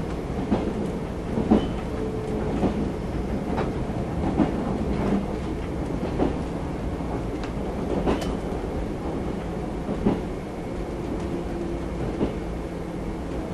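JR 381 series electric train running, heard inside the car: a steady rumble, with the wheels clicking over rail joints about once a second.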